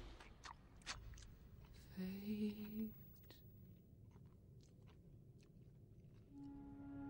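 A man's mouth chewing food: sparse wet clicks and smacks of eating. A brief low hum comes about two seconds in, and soft sustained music notes enter near the end.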